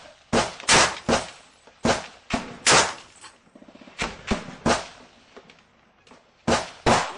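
Sporadic gunfire: about a dozen sharp single shots at uneven intervals, each with a short echo, and a pause of over a second near the end. A faint quick rattle sounds between the shots about halfway through.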